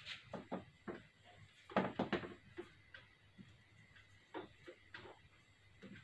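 Marker pen writing on a whiteboard: a string of short strokes with pauses between letters, busiest about two seconds in.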